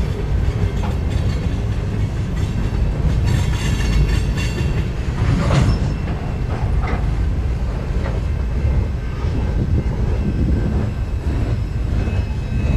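Freight train cars rolling past on jointed track: a steady low rumble of steel wheels with clickety-clack, some high wheel-on-rail hiss and a sharp clank about five and a half seconds in.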